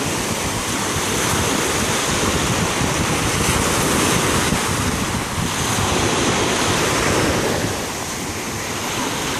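Small ocean waves breaking and washing through shallow surf in a steady rush, with wind buffeting the microphone.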